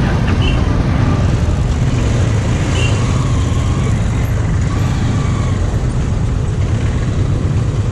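Motorcycle and car engines running in a queue of road traffic, idling and pulling away, with a steady low rumble throughout.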